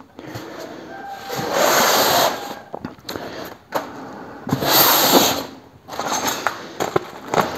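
Plastic packaging rustling and crinkling as wrapped parts are pulled out of a polystyrene foam packing box, in two longer rustles with a few light knocks between them.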